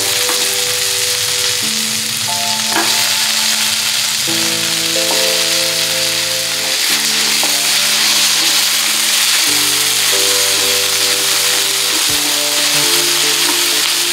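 Food sizzling as it fries in hot oil in a pan, a steady dense hiss, over soft background music with held chords.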